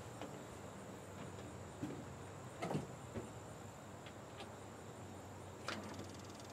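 A few scattered clunks and knocks from the cab of an old International fire truck as someone climbs in, the loudest about three seconds in, over a faint steady background.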